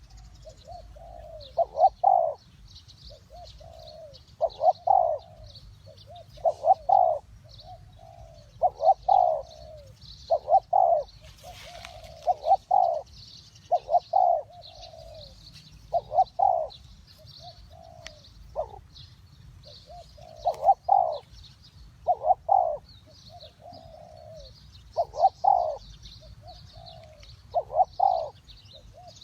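Spotted dove cooing in short multi-note phrases repeated about every two seconds, with small birds chirping faintly and high in the background.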